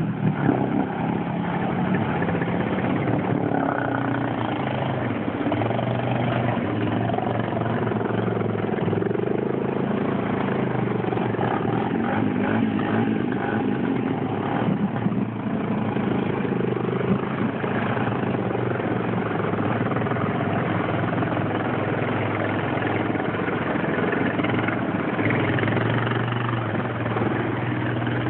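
ATV engine running steadily, its pitch rising and falling with the throttle.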